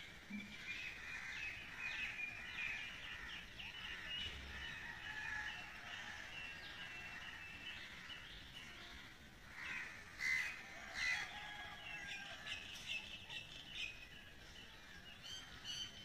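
Several small birds chirping and calling, with a few louder calls about ten seconds in and again near the end.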